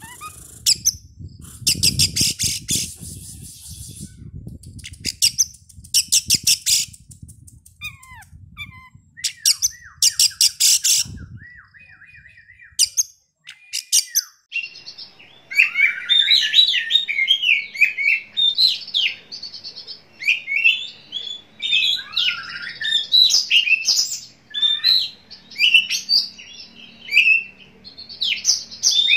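Oriental magpie-robin (kacer) calling and singing. Harsh, rattling chatters come in the first half, then about halfway in a fast, continuous run of varied whistled notes starts.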